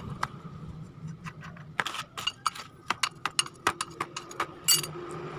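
Steel wrench clinking and ticking against the aluminium cylinder head of a Honda Supra as the valve cover is loosened: a string of sharp, irregular metal clicks.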